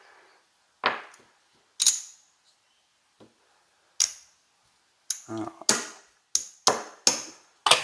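Casino chips clacking against each other as they are picked up, stacked and set down on the table: three single sharp clacks about a second apart at first, then a quick run of clacks over the last three seconds.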